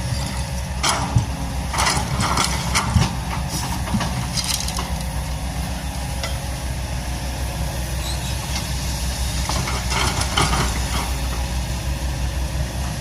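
Kobelco SK200 excavator's diesel engine running steadily, with scattered short knocks and clanks through the first few seconds and again about ten seconds in.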